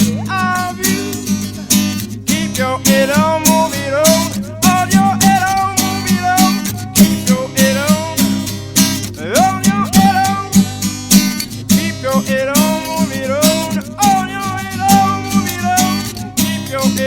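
Acoustic guitar played live, strummed with many sharp percussive strokes under a melody line that slides and bends in pitch.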